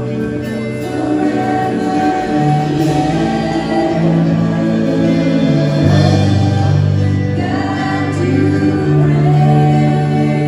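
Gospel worship music with sung vocals over sustained chords and a moving bass line.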